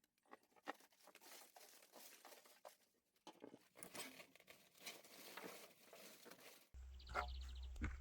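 Faint crackling and rustling of dry material being handled, in scattered small clicks. Near the end it cuts suddenly to a steady low hum with a brief high chirp.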